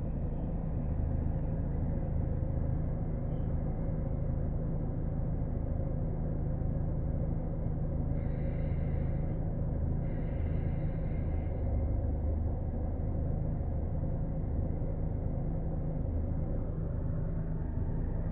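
Steady low rumble of a car driving, with engine and road noise heard from inside the moving vehicle. A faint high-pitched sound comes twice in the middle, each lasting about a second and a half.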